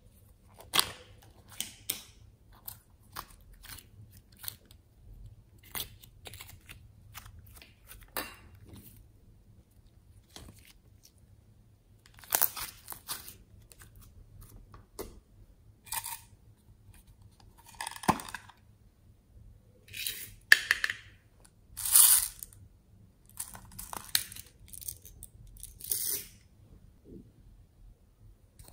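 Slime handled by hand and taken from small plastic pots: scattered sharp clicks, then longer sticky squelches from about halfway, loudest a little past the middle.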